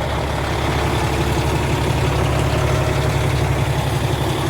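Heavy diesel engine idling with a steady low rumble.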